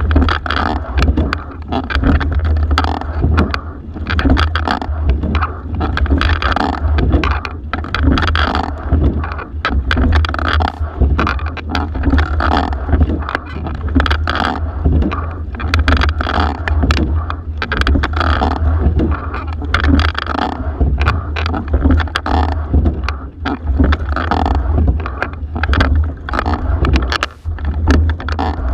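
Single racing scull being rowed hard: oars clicking and knocking in the oarlocks and the seat sliding, with water rushing along the hull, the noise swelling with each stroke about every two seconds. A constant low rumble lies under it all.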